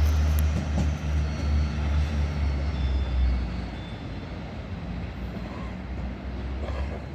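Train rumbling on the tracks: a heavy, steady low rumble that fades away after about three and a half seconds.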